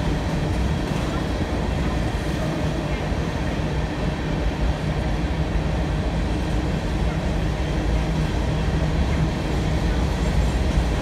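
BNSF open-top hopper cars of a freight train rolling past, with a steady rumble of wheels on the rails.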